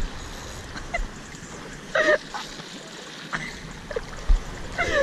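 Sea water splashing and lapping with wind rumbling on the microphone, and a short exclamation from the angler about two seconds in while he fights a fish on the rod.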